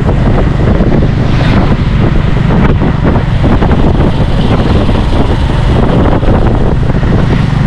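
Motorbike-drawn tuk-tuk under way: its motorbike engine running steadily with road noise, and wind buffeting the microphone.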